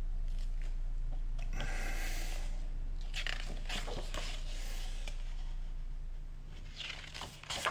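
Pages of a large photobook being turned and handled, several dry paper rustles and swishes, over a steady low hum that fades out near the end.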